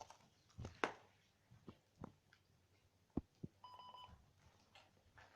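Mostly quiet, with a few faint clicks and knocks. Past the middle, a short electronic beep sounds for about half a second from a handheld device that keeps switching itself on.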